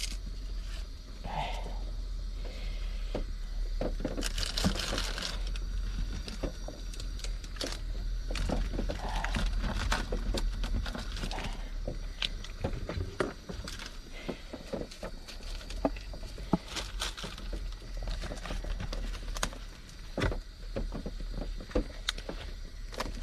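Scattered light taps and clicks at uneven intervals, as of dried noodles and food packets being handled while cooking, over a low steady hum.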